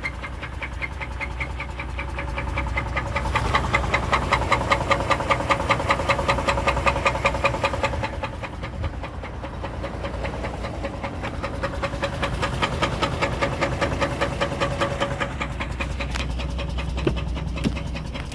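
Chevrolet Trailblazer engine running with a rapid, even knocking, louder for a few seconds early on before settling. The engine is logging random misfire and camshaft-to-crankshaft timing faults, with the exhaust cam over-advanced.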